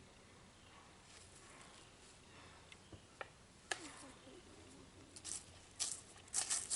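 Faint handling noises: a few light clicks and rustles, coming more often near the end.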